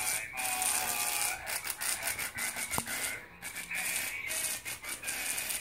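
Musical greeting card playing a recorded song through its small built-in sound chip, a run of held notes over a buzzy hiss.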